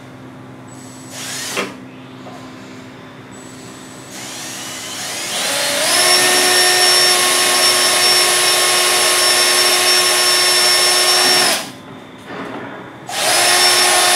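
Cordless drill boring crack-stop holes through thin aluminium at the ends of a crack: a short burst, then the motor whine ramps up over a couple of seconds and runs steadily for about six seconds before stopping, and a second run starts near the end.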